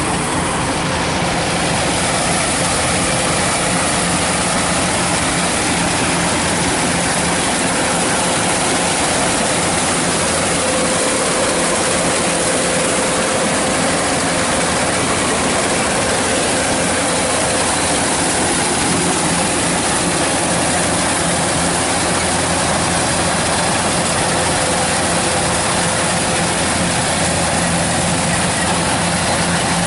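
Kubota DC-105X combine harvester running steadily while cutting rice, its diesel engine and threshing machinery making a loud, unbroken mechanical din.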